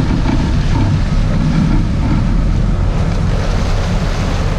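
Steady low rumble of a sportfishing boat's engines, with water washing at the stern and wind buffeting the microphone.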